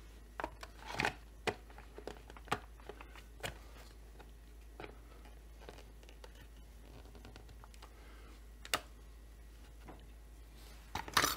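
Hard plastic clicks and knocks as a Holzfforma G388 chainsaw's top cover is set back over the air filter and pressed into place: a quick run of taps in the first few seconds, a single sharp click about nine seconds in, and a cluster of clicks near the end.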